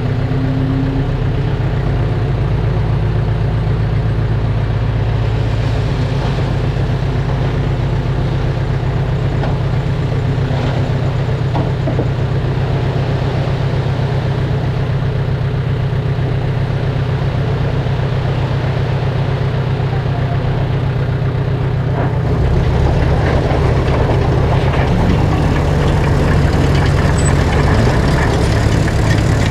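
Heavy diesel engine of earthmoving machinery running steadily, getting louder and deeper about three-quarters of the way through.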